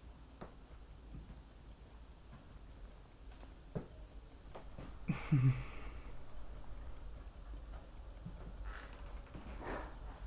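A clock ticking steadily in a quiet room, with a brief louder thump about five seconds in.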